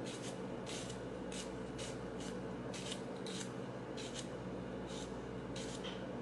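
Large kitchen knife shaving thin slices off a hand-held cucumber: a short crisp cut about twice a second, over a steady low hum.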